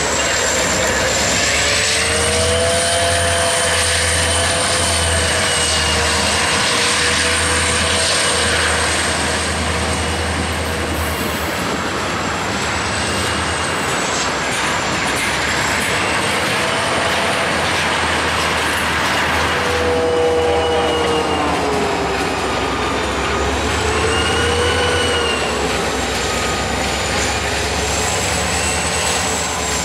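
Freight train rolling slowly past: steel wheels on rail with wavering squeals that slide up and down in pitch, over the low throb of a BNSF diesel locomotive's engine.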